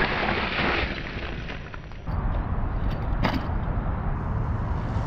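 Electric scooter's wheel plowing into a pile of snow, a loud crunching hiss that fades out about a second in. After that comes a low steady rumble of the scooter rolling on pavement, with one sharp knock just past three seconds.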